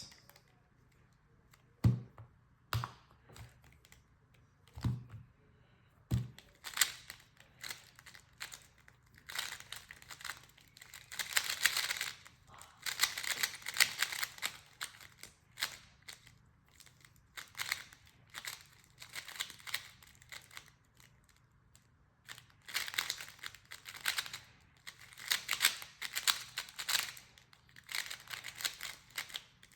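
Magnetic 3x3 speedcube, an XMan Tornado V3, turned fast during a timed solve: a few separate knocks in the first six seconds, then rapid runs of plastic clicking and clacking from the layer turns, broken by a short pause about two-thirds through.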